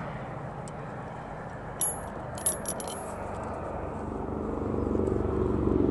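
A few light metallic clinks of a steel washer against threaded rod, in quick succession about two seconds in. From about two-thirds of the way through, a low vehicle engine hum grows steadily louder.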